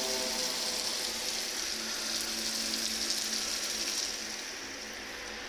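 Chicken pieces frying in spice paste in a hot wok, sizzling steadily. About four seconds in the sizzle drops and quietens as coconut milk is poured in.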